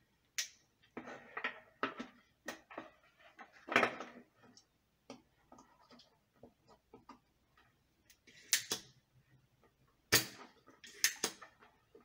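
Irregular clicks, taps and rustles of hands handling a fan remote-control receiver's circuit board, its wires and a soldering iron on a tabletop, with a few louder knocks near the middle and toward the end.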